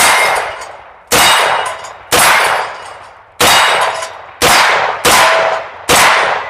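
Seven single shots from a pistol-calibre MP5, fired semi-automatically about a second apart and a little faster over the last three, each with a ringing echo that fades before the next.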